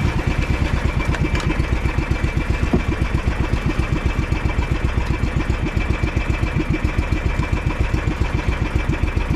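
Outrigger boat's inboard engine running steadily under way, an even, fast chugging of about eight beats a second.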